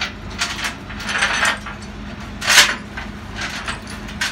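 Irregular metallic clanks and rattles of tie-down gear being worked at the rear of a flatbed tow truck, the loudest about two and a half seconds in, over the steady hum of the tow truck's idling engine.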